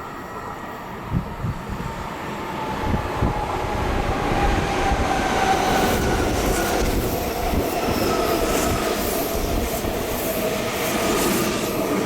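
A Meitetsu electric train passing through a station without stopping: rumbling wheels on the rails with clicks, and a whine that slowly falls in pitch, growing louder about four seconds in as the train comes by.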